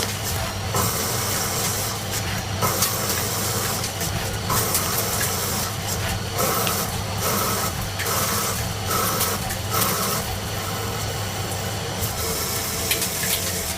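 CNC machine running: a steady low hum under a hissing, rasping noise that starts and stops every second or so.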